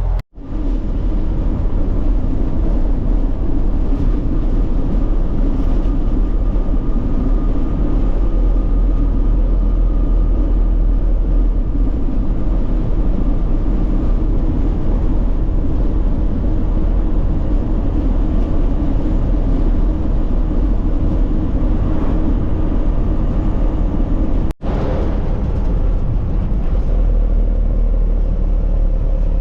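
Truck engine and road noise heard from inside the cab while driving, a steady low rumble. The sound cuts out for a split second twice, once just after the start and again near the end.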